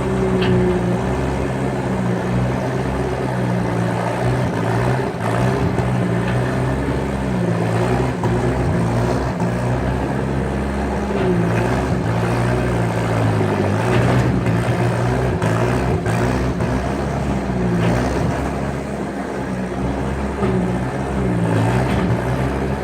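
Skid steer engine running under load, its pitch rising and falling as the revs change, with a few faint knocks along the way.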